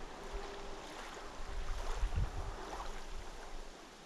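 Small waves lapping at the reservoir bank, with wind buffeting the microphone in a gust about two seconds in. A faint steady hum sits underneath.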